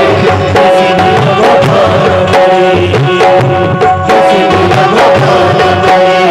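Loud instrumental interlude of devotional bhajan music: tabla playing a steady rhythm under held melody notes.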